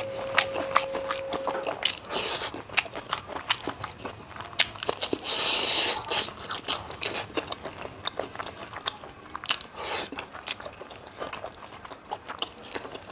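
A person chewing and biting pork with bamboo shoot, miked close, in dense irregular mouth and teeth clicks. A faint steady tone sounds underneath for the first couple of seconds.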